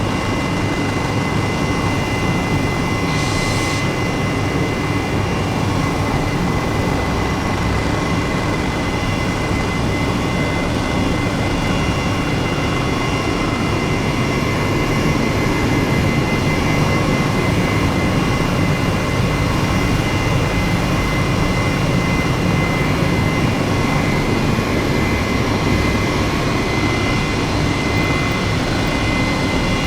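Steady jet engine drone with a constant high whine running over it, unchanging in level.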